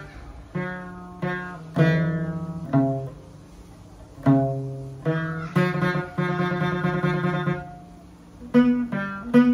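Chapei dang veng, the Cambodian long-necked two-string lute, played solo: phrases of plucked notes, some held as rapid tremolo picking, with two short pauses between phrases.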